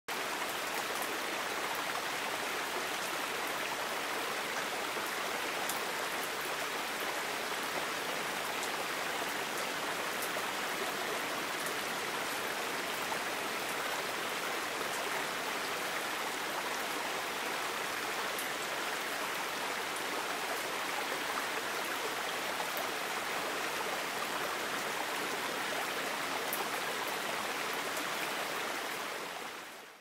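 Shallow garden stream running over rocks and small cascades, a steady rush of water that fades out near the end.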